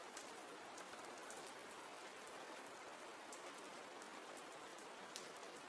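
Faint, steady rain falling, an even hiss with scattered soft drop ticks.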